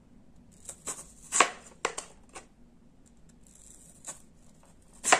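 Hand-held crinkle cutter slicing a raw peeled potato into wavy slices, the blade knocking down onto the cutting board with each stroke: a run of sharp knocks, the loudest about a second and a half in and another near the end.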